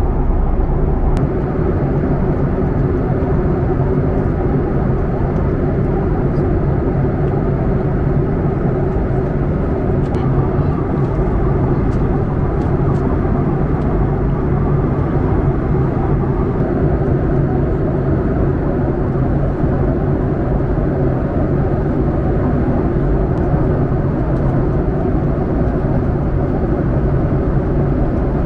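Airliner cabin noise in flight: the steady rush of the jet engines and the airflow, with an even low hum.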